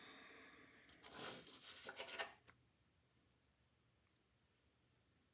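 Scraping and rubbing of small metal phonograph carriage parts being handled and fitted, for about two and a half seconds, then a single light click.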